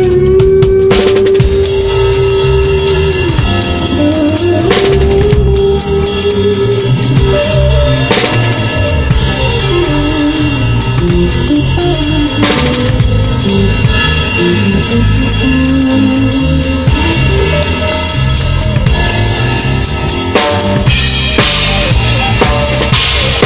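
A band playing fusion-style music on drum kit, with kick drum, snare and rimshots, under a bass line and a lead melody line. There are cymbal crashes at about 5 s and again at about 13 s.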